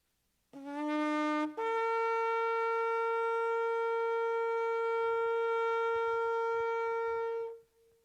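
Shofar blown: a short low note, then a jump up to a long high note held for about six seconds.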